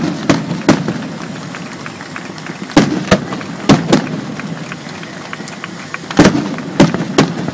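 Aerial firework shells bursting in the sky: about nine sharp bangs in pairs and small clusters, over a steady hiss between the reports.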